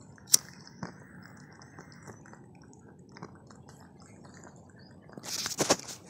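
A sharp click of a long-neck utility lighter being triggered about a third of a second in, with a softer knock just after. A brief loud burst of noise follows near the end.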